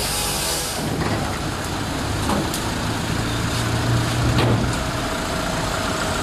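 Truck engine running steadily; its low hum swells about three seconds in and eases off near the end. A brief hiss at the very start.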